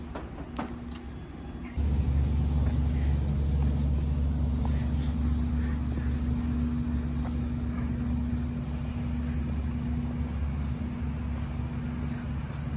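A steady low mechanical rumble with a constant hum, like an engine or machinery running. It comes in abruptly and much louder about two seconds in, then holds steady.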